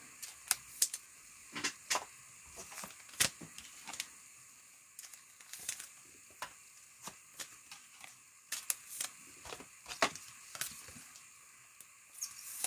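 Trading cards and their plastic sleeves or holders being handled on a table: irregular light clicks, taps and rustles, a dozen or so spread through the stretch.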